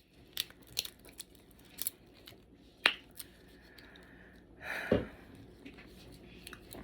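Scattered sharp clicks, snaps and tearing of blue crab shell being cracked and picked apart, the loudest snap about three seconds in, with a short low breathy sound at about five seconds.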